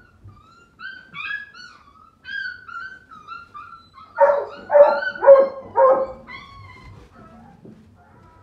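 Young puppies whining and squealing in high, gliding cries, then four sharp, high-pitched yips in quick succession about halfway through, fading back to soft whimpers.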